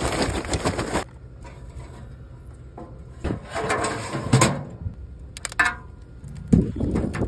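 Charcoal briquettes poured from a bag clatter into a perforated steel charcoal basket for about a second. Then come scattered metal clunks and scrapes as the basket of charcoal is handled and seated in the smoker's firebox.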